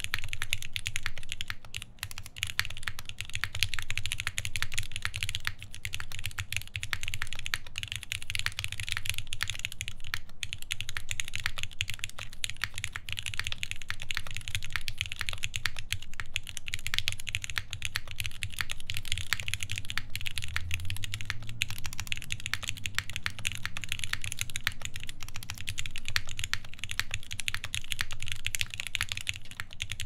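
Continuous typing on a Keycult No. 1 Rev. 2 tenkeyless mechanical keyboard with lubed ZealPC Tealios linear switches, an aluminium full plate and GMK keycaps: a dense, steady stream of keystroke clacks, with a brief lull about two seconds in.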